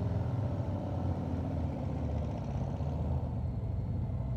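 Harley-Davidson V-twin motorcycle engine running steadily at low speed.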